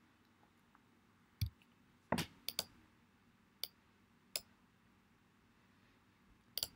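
Computer mouse clicking: about seven short, separate clicks, some in quick pairs, with quiet between them.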